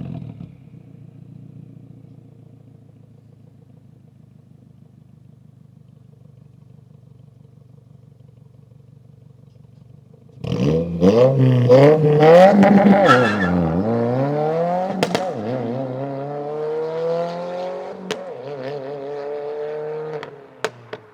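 2022 Subaru WRX's turbocharged 2.4-litre flat-four idling steadily through an exhaust with the secondary cat, resonator and mufflers deleted. About ten seconds in it is revved hard several times, the pitch rising and falling, then held at a slowly climbing pitch with a few sharp pops near the end.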